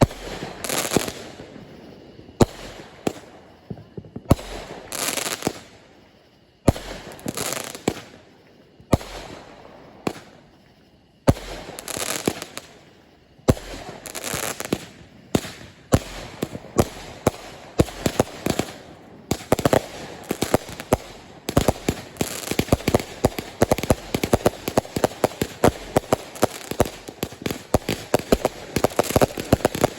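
Aerial fireworks going off, a sharp bang every second or two, each followed by a crackling, hissing trail. About halfway through, the shots come thick and fast in a dense barrage of bangs and crackles.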